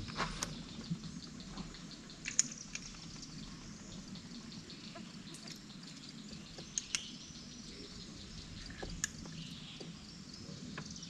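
Quiet open-air ambience with faint bird or insect calls and a few sharp clicks and taps, the loudest about two and a half seconds in and a close pair near the middle.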